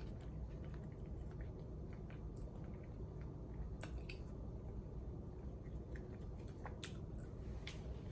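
Faint chewing of a soft boiled dumpling, with small wet mouth clicks scattered through.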